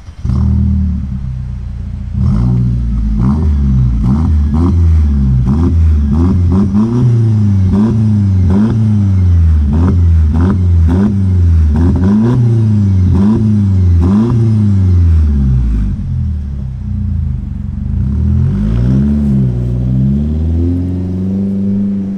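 Mercedes C-class W204 petrol engine heard through a split aftermarket exhaust with AMG tips. It idles briefly, then is blipped about ten times in quick succession, each rev rising and falling in pitch, with sharp cracks among the revs. It settles, revs twice more and pulls away, fading.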